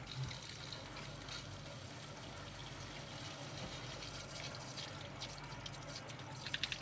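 Water running into a reverse-osmosis filter's pre-filter housings as they fill under supply pressure during a flush, a faint steady hiss. Near the end come quick gurgling ticks as the faucet begins to gurgle.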